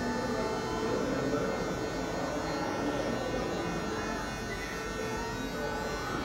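Electric hair clippers buzzing steadily as they cut hair at the side of the head.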